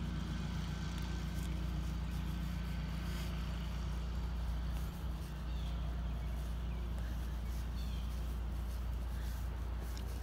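A steady low engine hum, like a motor running nearby, with a few faint bird chirps.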